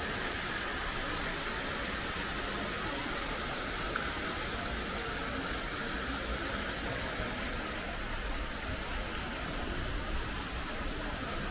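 Steady rushing noise of a city street, with no single event standing out.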